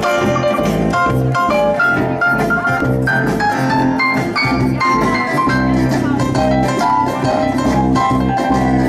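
Live New Orleans-style jazz band playing an instrumental break, with an electric keyboard taking a solo of quick, short notes over a steady bass line and rhythm.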